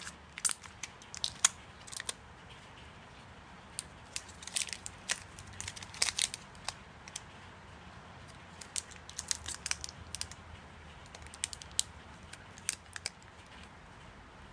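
Slime being squeezed and poked by hand, giving irregular clusters of small sticky clicks and crackles.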